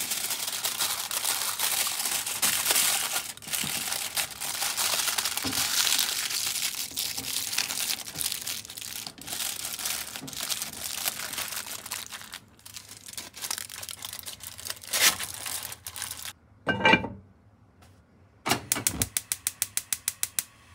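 Aluminium foil crinkling and rustling as hands fold and crimp it shut into a parcel. It stops suddenly and is followed by a single knock. Near the end comes a rapid, even run of clicks, about six a second, from a gas stove burner's igniter.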